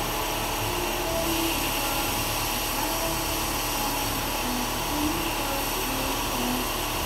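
Steady, even whooshing background noise with no distinct knocks or clicks.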